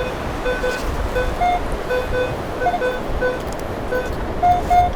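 Metal detector sounding on a target: a run of short beeps, mostly one low tone with a few higher ones, repeating unevenly as the coil sweeps over it, over steady surf and wind noise. The target reads around 20, which they take for another penny.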